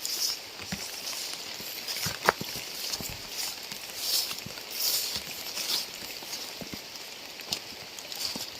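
Rain falling: a steady hiss with irregular drops tapping close by, one sharper tap about two seconds in.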